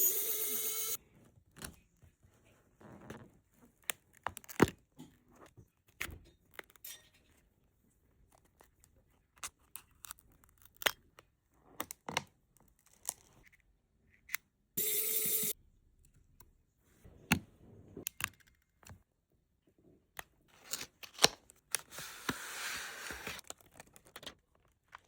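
Small clicks, taps and scrapes of tools and parts being handled during a phone screen replacement, with a short steady buzzing tone at the start and again about 15 seconds in, and a brief hiss near the end.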